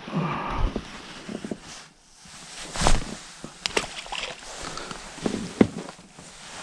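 Knocks, clatter and water sloshing in a small fishing boat as a freshly landed pike is handled. The loudest knock comes about three seconds in, and another sharp one comes near the end.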